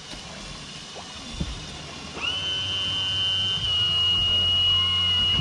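A small electric motor starts up about two seconds in, its pitch sweeping up quickly and then holding as a steady high whine over a low hum.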